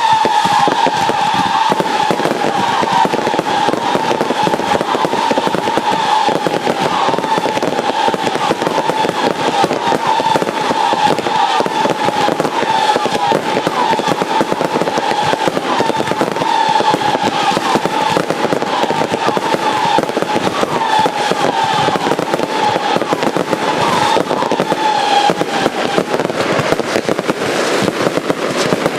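Consumer fireworks going off: dense, continuous crackling and popping. Over it a steady, wavering whistle sounds for most of the time and stops about three seconds before the end.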